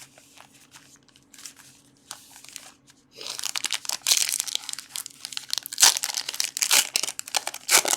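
A trading-card pack wrapper being torn open and crinkled, starting about three seconds in with loud, continuous crackling, after a few seconds of light handling clicks.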